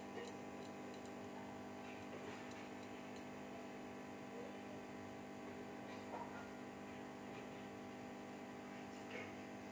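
Steady electrical hum with a few faint, brief soft sounds scattered over it.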